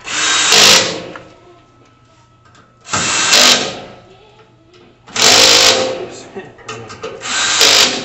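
Power drill driving and tightening screws into the grill cart's frame, in four short bursts each under a second long, spaced a couple of seconds apart.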